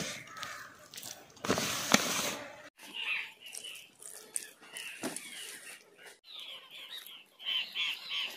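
Wet rubbing and rustling of hands working masala paste into a whole fish on a banana leaf, loudest about two seconds in. After a sudden drop, birds call in short repeated chirps, several in quick succession near the end.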